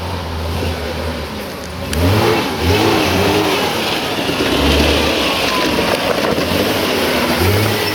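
Off-road 4x4's engine running, then revved in a series of quick bursts from about two seconds in, its pitch rising and falling several times.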